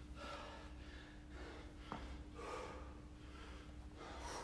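Faint, heavy breathing of a man out of breath from exertion while doing air squats, in rhythmic noisy breaths about once a second, with a small click about two seconds in.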